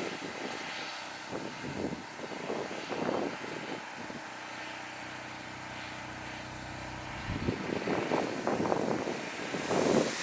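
Sea wind gusting against the microphone, with a steady engine drone of several even low tones in the middle that cuts off about seven and a half seconds in.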